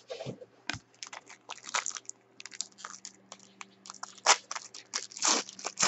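Crinkling foil trading-card pack wrapper and cards being handled: a dense run of short, irregular crackles and rustles, over a faint steady electrical hum.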